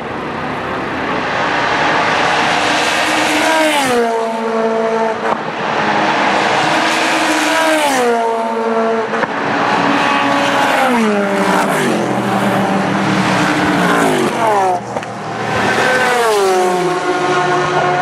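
Race cars passing one after another at speed. Each engine note drops in pitch as the car goes by, about five times in a row over a continuous roar.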